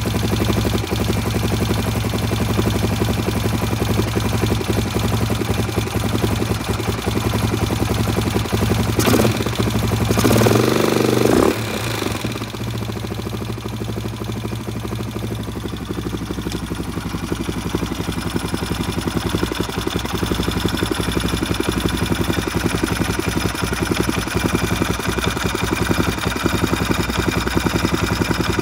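Husqvarna 610's single-cylinder four-stroke engine idling steadily. About nine seconds in it grows louder and higher for a couple of seconds, then drops sharply back to a quieter idle.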